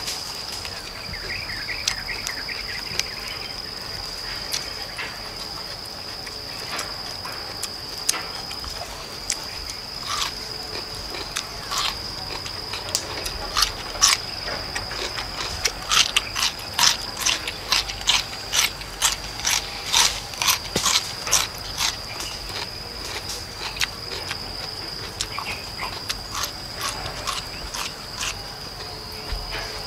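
Crisp bites and chewing of raw chayote: sharp crunches that come thickest in the middle stretch, about two a second. A steady high insect drone runs behind.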